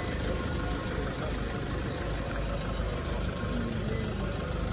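SUV engines idling, a steady low running sound.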